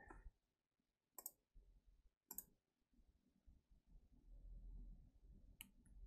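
Near silence with three faint, short clicks spread a second or more apart.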